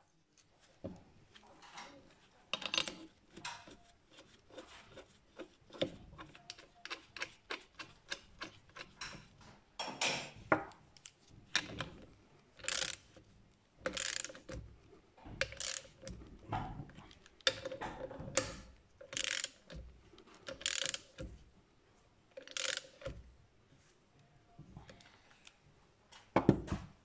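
Ratchet wrench clicking as it tightens the mounting bolts of a Brembo brake caliper. Quick runs of fine ticks give way, about ten seconds in, to separate longer ratcheting strokes about once a second, with a louder metal clatter near the end.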